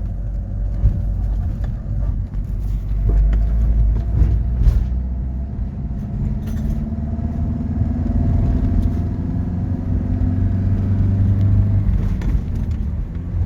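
Motorhome driving: a steady low engine-and-road rumble. The engine note climbs slowly through the middle and drops back near the end, with a few light knocks.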